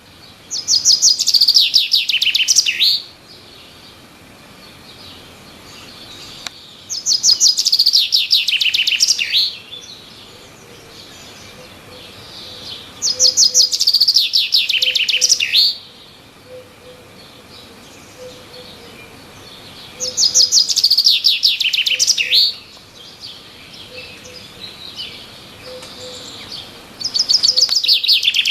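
A songbird in a tree singing the same song five times, about every six seconds. Each song is a rapid trill of high notes lasting about two seconds and ending in a downward sweep. Fainter chirps from other birds come between the songs.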